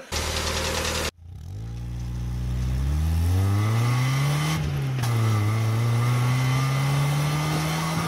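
Car engine accelerating, its pitch climbing steadily, dropping at a gear change a little past halfway and then climbing again. A short rushing noise in the first second cuts off abruptly before the engine comes in.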